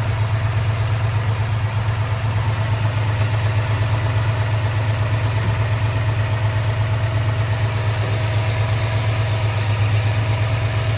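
2022 Ford F-250's 7.3-litre gasoline V8 idling steadily and evenly, freshly rebuilt after a hydraulic lifter and camshaft repair.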